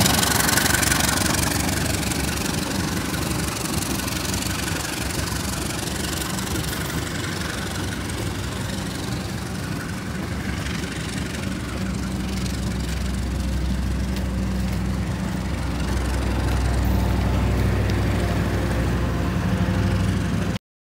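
CC 201 diesel-electric locomotive running as its train moves off, with the noise of the moving train loudest in the first couple of seconds. A low, steady engine hum grows louder again in the last several seconds, then the sound cuts off suddenly near the end.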